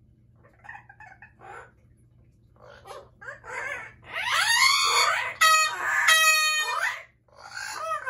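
Amazon parrot calling: a few soft notes, then from about three seconds in a run of loud squawks, some falling in pitch, and two drawn-out level screeching calls.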